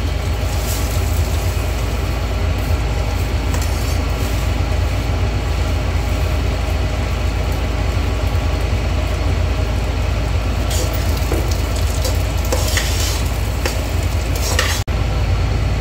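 Kitchen chimney extractor fan running with a steady hum. Under it, soaked rice sizzles as it is tipped into hot ghee and whole spices in a pressure cooker, and a spoon scrapes through it a few times near the end.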